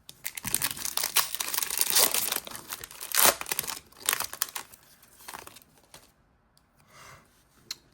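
Pokémon booster pack's foil wrapper being torn open and crinkled, a dense crackling for about the first four seconds, then a few quieter rustles.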